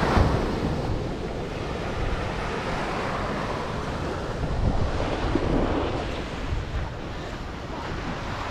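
Small waves washing up on a sandy shore, with wind buffeting the microphone; the wash swells a little about five seconds in.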